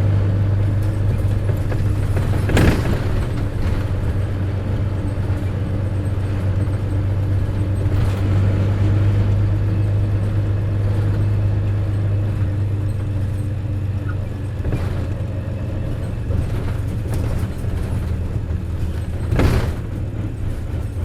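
Mitsubishi Fuso P-MP218K Aerostar bus running, heard from on board: a strong steady low drone, the unusual noise this bus is known for, easing somewhat in the second half. Two sharp knocks, one a few seconds in and one near the end.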